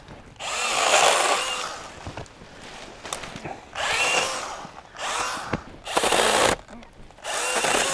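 Makita MUC101D 18V cordless handheld pruning chainsaw running in about five short bursts, the longest first, its electric motor whining as the chain cuts through branches.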